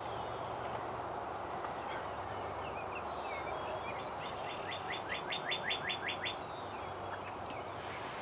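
Birds calling over a steady outdoor hiss: a few faint chirps, then a quick run of about ten falling notes a little after four seconds in.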